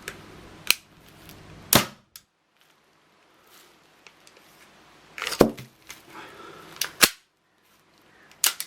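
Airsoft DL-44 gas pistol being worked and fired: about five sharp shots and clicks, spaced irregularly, the loudest a little under two seconds in and twice around five to seven seconds in.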